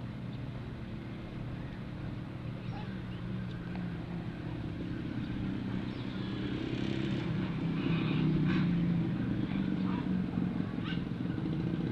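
Steady low hum of a running motor, growing slightly louder from about six seconds in, with a few faint clicks and ticks over it.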